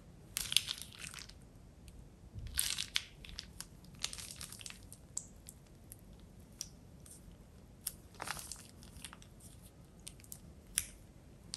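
Plastic piping bag full of slime glue crinkling and crackling as a hand squeezes and wrings it, in several short bursts with small sticky clicks between them.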